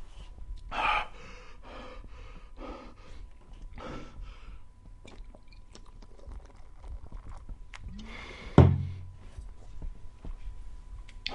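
A man gasping, breathing hard and swallowing as he swigs from a glass beer bottle, with a loud breathy exhale about a second in. A sharp thump, the loudest sound, comes about eight and a half seconds in.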